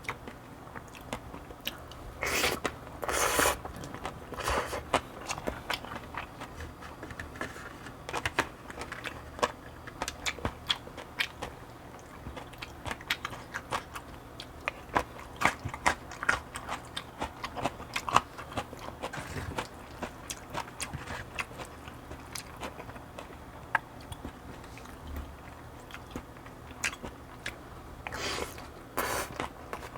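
Close-miked eating sounds: chewing a mouthful of barley bibimbap and cheonggukjang, with frequent small mouth clicks and crunches. Two longer, noisier bursts come about two seconds in and near the end.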